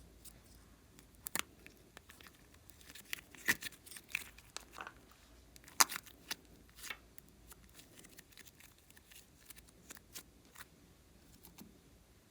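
Slime and makeup being handled: scattered sharp clicks and crackles, with a busy cluster in the middle and the loudest click about six seconds in.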